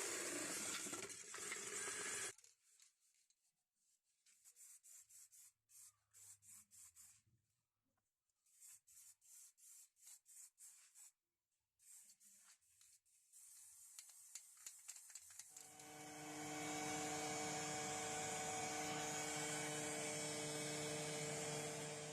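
A paint-shaking power tool runs for about two seconds and stops. Then comes a series of quick sharp clicks, several a second. From about two-thirds through there is a steady spraying hiss over a low hum.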